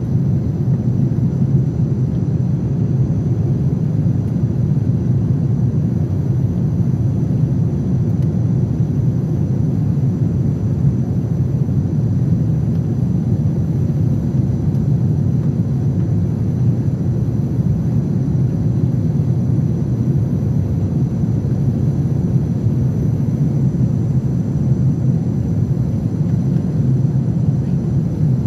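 Airbus A350 cabin noise in the climb after takeoff: a steady low rumble of the Rolls-Royce Trent XWB engines and airflow heard through the fuselage, with a faint high steady whine above it.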